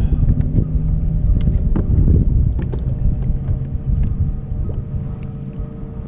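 Low, gusty rumble of wind buffeting the microphone over choppy water, with a faint steady hum from an electric trolling motor and a few light ticks.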